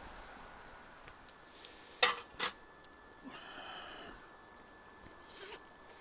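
Metal camp dishes clinking twice in quick succession, two sharp clicks about two seconds in, amid soft handling noise.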